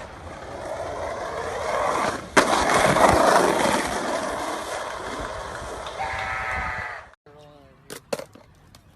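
Skateboard wheels rolling fast over pavement, a steady rushing grind that builds, with one sharp clack of the board about two and a half seconds in. The rolling cuts off abruptly about seven seconds in, followed by a few faint short yells.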